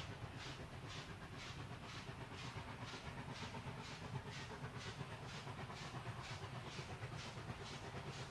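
Distant exhaust beats of NSW 36 class steam locomotive 3642, an even chuff about two to three times a second over a low rumble, with the locomotive working hard under heavy black smoke.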